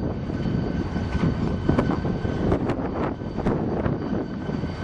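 Two diesel locomotives running as they pull a train of hopper cars toward the listener, a steady engine drone with a few sharp clicks.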